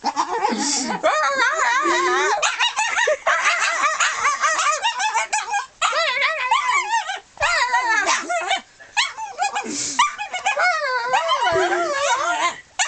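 Dog making a high, warbling whine whose pitch wobbles rapidly up and down, in long near-continuous runs broken by a few short pauses.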